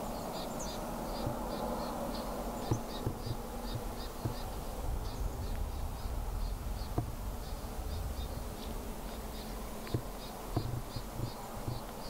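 Insect chirping in short, high, paired pulses, about three a second, over a low rumble with a few soft knocks.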